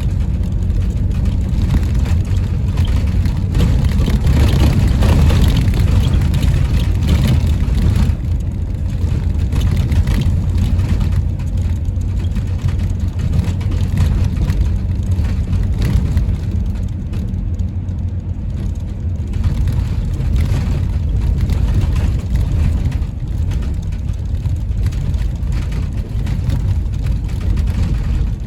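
Inside a highway coach driving over bumpy, rutted packed snow: the diesel engine and road noise make a steady low rumble, louder and busier for the first eight seconds or so, then a little quieter.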